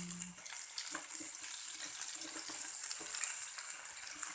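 Pork chops sizzling in a frying pan: a steady high hiss of frying with small scattered crackles.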